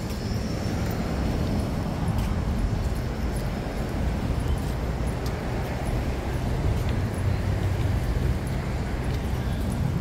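Steady low rumble of road traffic on a city street.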